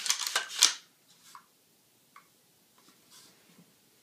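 Handling noise from a rifle being gripped to test finger room in its new polymer trigger guard: a quick flurry of clicks and rustles in the first second, then a few faint taps.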